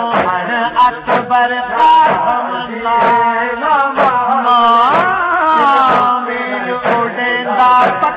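Male voice chanting a Punjabi noha, a Shia lament, with long bending notes. Under it, rhythmic matam: hands striking the chest about twice a second.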